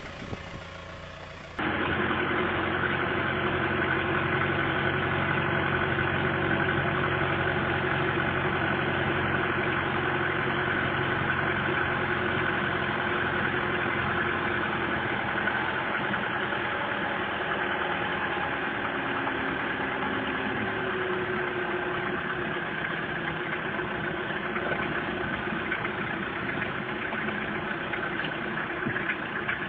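A vehicle's engine running steadily, heard from inside the cab while driving along a dirt track. It cuts in suddenly about a second and a half in, after a quieter stretch.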